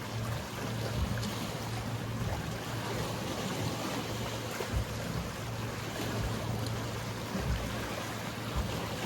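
Sea waves washing against the shore, with the steady low hum of a boat engine underneath and occasional low thumps of wind on the microphone.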